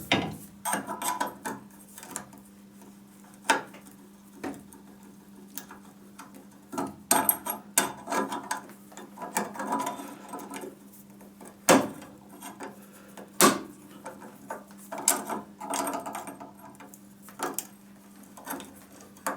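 Metal on metal as a stuck drill bit is worked loose from a hole saw by hand: irregular clinks, taps and scraping rattles with a few sharp knocks, over a faint steady low hum.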